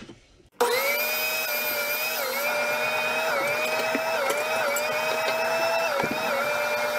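Electric kitchen mixer running with a dough hook, kneading sourdough bread dough. The motor starts about half a second in and runs with a steady whine that sags briefly in pitch about once a second as the hook works through the dough.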